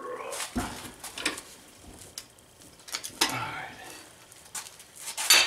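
Welded aluminum test coupon being bent back and forth in a bench vise by gloved hands until it tears through: irregular metal creaking, scraping and knocks. It breaks in the aluminum beside the weld, not at the weld. A sharp clank about five seconds in is the loudest sound.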